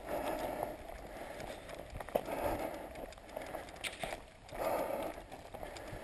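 Running footsteps on a dry dirt forest trail, irregular scuffs and clicks with a few short swells of rustling noise.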